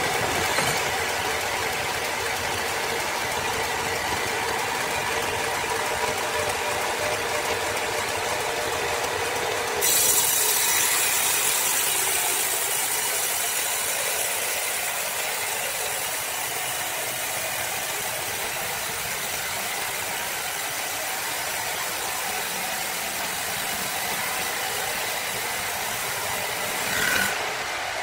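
Steady mechanical noise of machinery running. About ten seconds in the sound changes abruptly and a bright hiss joins it, running until shortly before the end.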